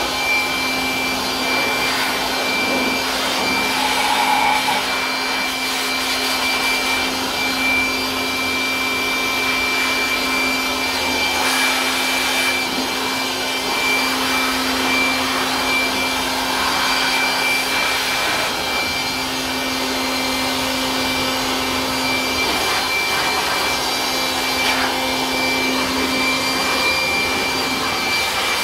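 Handheld electric blower running steadily, blowing air over a washed mountain bike to dry it. A steady motor hum and a high whine sit under the rush of air, which swells a little as the nozzle is moved around.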